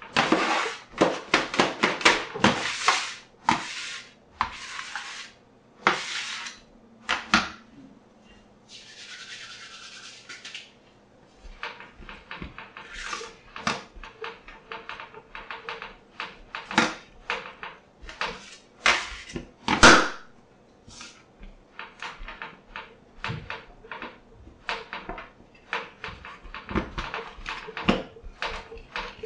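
Fresh egg pasta dough kneaded by hand on a stainless steel worktop: irregular thumps, slaps and rubbing. A metal bench scraper scrapes across the steel near the start. A steady hiss lasts about two seconds around nine seconds in, and a sharper knock comes around twenty seconds in.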